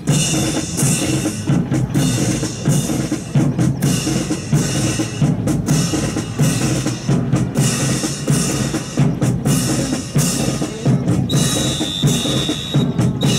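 Drum-led march music with bass and snare drums keeping a steady beat, starting suddenly. A high steady tone is held for a couple of seconds near the end.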